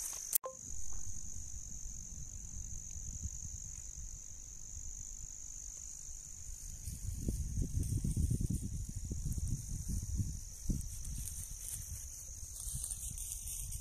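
Steady high-pitched chirring of insects in dry grass, with a fluttering low rumble of wind on the microphone that swells in the middle. A single sharp click comes just after the start.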